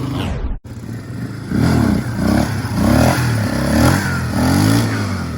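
Small off-road motorcycle engine running, then, after a brief break, revved in a quick series of short blips that rise and fall in pitch.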